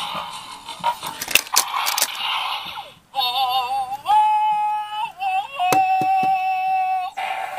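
Bandai DX Zyuoh The Light toy morpher playing its electronic sound effects and synthetic jingle through its small speaker, set off by pumping its trigger three times for the combine mode. It starts with a noisy effect with sharp clicks, then after a brief gap switches to warbling electronic tones and long held notes.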